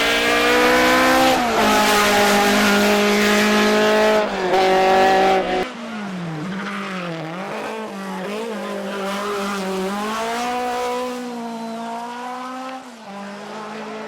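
Ford Escort Mk2's Cosworth BDA four-cylinder twin-cam race engine at high revs, climbing in pitch and dropping at two gear changes. About six seconds in it turns quieter, the revs rising and falling.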